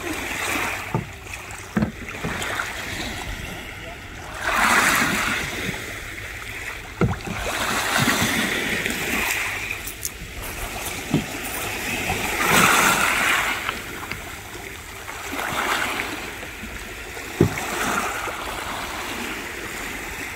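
Sea water washing and splashing around a fishing kayak heading out through the surf, in surges every three to four seconds, with a few sharp knocks in between.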